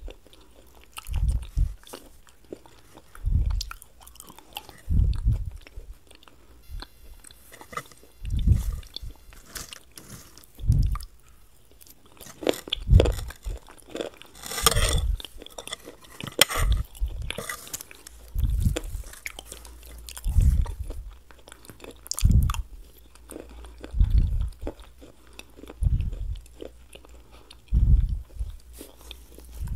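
Close-miked chewing and biting: deep, soft chews about every two seconds, with a spell of crisp crunching about halfway through.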